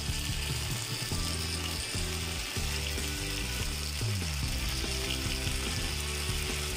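Potato strips deep-frying in oil in a nonstick pan, a steady crackling sizzle over a gas flame turned up high. Low tones shift underneath, with one falling glide about four seconds in.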